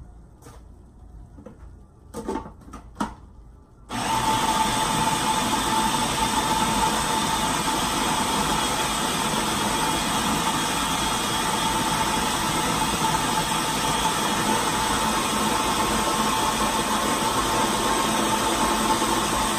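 A few knocks, then about four seconds in a food processor's motor starts and runs steadily with a constant whine, chopping vegetables into a mixture.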